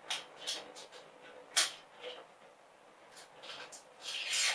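Plastic protective film and adhesive backing on a small stick-on wall hook crinkling and rustling in the hands as it is peeled off: a few short, scratchy crackles, the sharpest about a second and a half in, and a longer rustle near the end.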